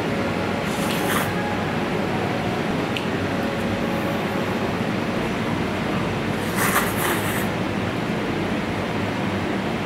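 A person slurping and eating spicy instant noodles (Buldak fried noodles), with two short, hissy slurps, about a second in and again around seven seconds in, over a steady background hum.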